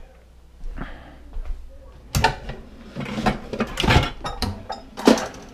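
A kitchen knife cutting through raw chicken onto a cutting board, with irregular knocks and clatter as the blade is pushed hard through the meat. The knife is too dull to cut it easily.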